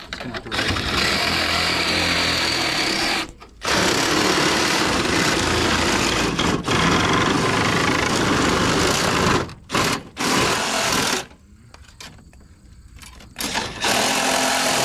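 Compact cordless reciprocating saw cutting into the coil of a mini-split indoor unit. It runs in spells: about three seconds, a brief stop, nearly six seconds, a few short bursts, a two-second pause, then it starts again near the end.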